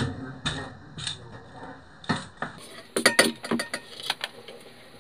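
Steel cooking pots and a lid knocking and clinking together on a hearth: a scatter of sharp knocks and clinks, densest from about three to four seconds in.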